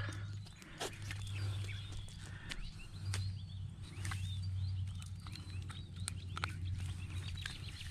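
Small birds chirping, many short high calls over a steady low hum, with a few sharp clicks scattered through.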